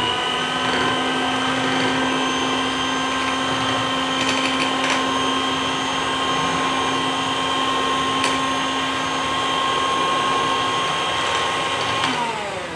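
Electric hand mixer running at a steady medium speed, its beaters whisking a cream mixture in a glass dish, with a few light ticks along the way. Near the end the motor's whine falls in pitch and stops as it is switched off.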